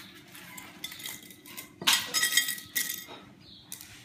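Dry lasagna pasta pieces clattering and clinking against a bowl and the tabletop as a child handles them. Scattered small clicks, then a burst of louder ringing clinks about two seconds in.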